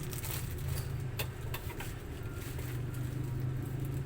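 A steady low mechanical hum, with a few light clicks around a second in.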